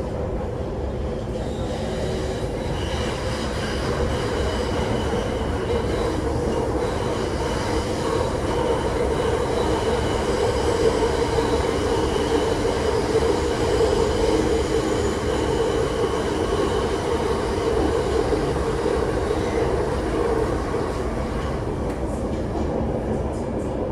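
Cabin noise of an MTR IKK-Train electric multiple unit running between stations: a steady rumble of wheels on track with thin high tones above it, growing a little louder midway.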